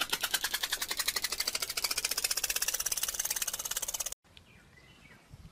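Rapid, even clicking that speeds up steadily, then cuts off abruptly about four seconds in.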